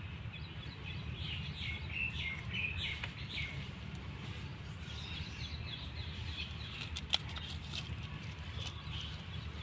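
Short high chirps in the background, clustered in the first few seconds, over a low steady rumble, with one sharp click about seven seconds in.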